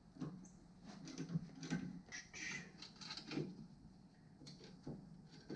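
Faint, irregular clicks and scrapes of a 15 mm wrench being worked on a front-suspension bolt to break it loose.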